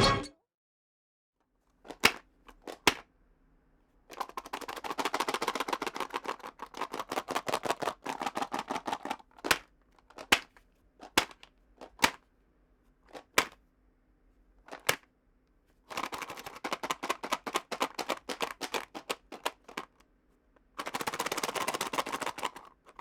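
USB flash drives rattling inside a small box as it is shaken like a shaker, with a heavier, less bright sound than an egg shaker. There are single sharp shakes and three runs of rapid shaking, the first about four seconds in.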